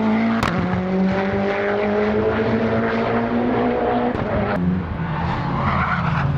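Modified time-attack race car engine running hard at high revs, its pitch climbing slowly. The note changes about four and a half seconds in, and there are a few sharp cracks.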